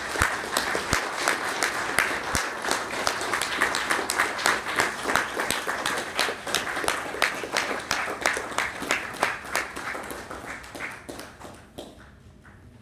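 Audience applauding: steady, dense clapping that thins out and dies away near the end.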